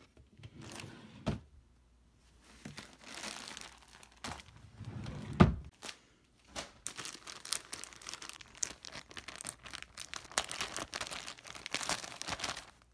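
Clear plastic bag crinkling and rustling as a hand rummages through it, with a couple of thumps in between, the loudest about five and a half seconds in.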